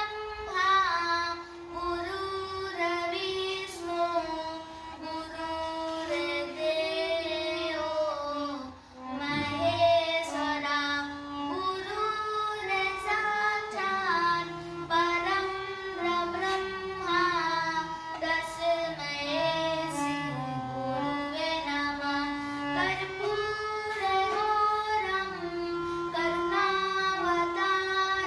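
A high voice sings a Hindi devotional bhajan to Shri Ram in long held notes that move in steps, with melodic instrumental accompaniment.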